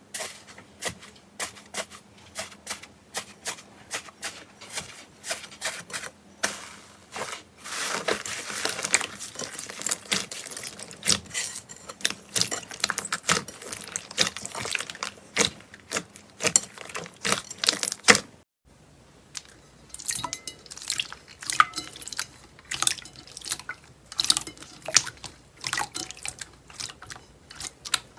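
Slime being squished and poked by hand: a run of irregular, sharp wet clicks and pops, thickest from about eight seconds in. The clicking breaks off briefly near eighteen seconds, then starts again.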